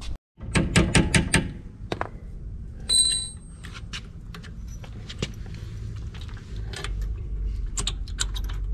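Sharp metallic taps and clinks of brake caliper work: the pad retaining pins being tapped back into a rear Brembo caliper, with a quick run of about six taps near the start and scattered taps after. About three seconds in, one strike leaves a short high metallic ring.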